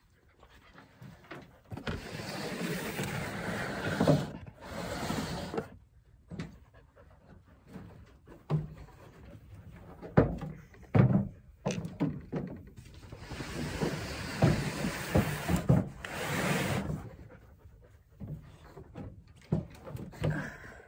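Handling noise from unloading and carrying packages of deer meat: scattered knocks and thumps, with two stretches of a few seconds of hissing, rustling noise.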